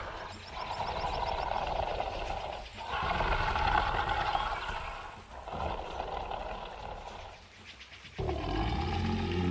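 Monster sound effect for a bull-headed creature: three long, rough, unpitched roars of about two seconds each, then a deep, low bull-like bellow begins about eight seconds in.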